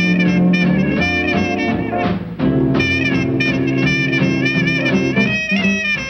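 Background jazz music in a swing style, with brass horns carrying sustained, wavering notes; the arrangement thins out about five seconds in.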